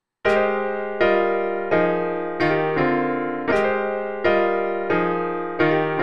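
Sampled piano notes from the Platinum Bounce Piano Vibe Kit in Native Instruments Maschine, triggered one after another about every three-quarters of a second, starting about a quarter second in. Each strike rings and fades, and the pitch changes from one to the next.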